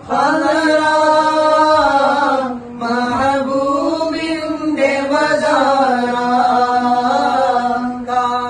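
Male voice singing an unaccompanied Arabic devotional song in praise of the Prophet, with long held notes that waver and bend in pitch. There is a short break for breath about two and a half seconds in.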